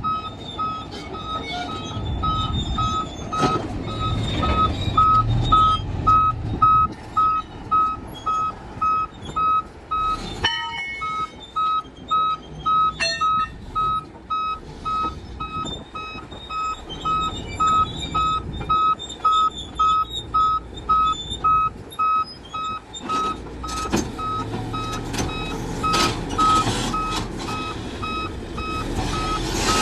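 Backup alarm on heavy equipment beeping steadily about twice a second over the low rumble of a large diesel engine, which grows louder near the start and again near the end. A few sharp clanks are heard now and then.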